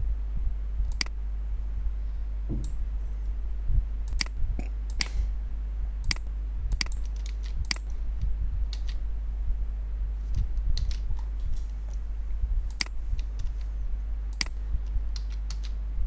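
Irregular clicks of a computer mouse and keyboard keys, roughly one a second with a few in quick pairs, over a steady low electrical hum.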